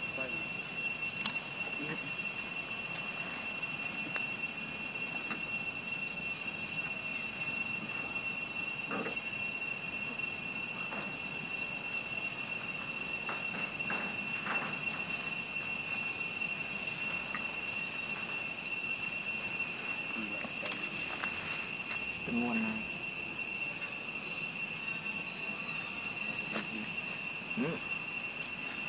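Steady, high-pitched insect chorus: a continuous shrill drone at two pitches, with faint scattered ticks in it.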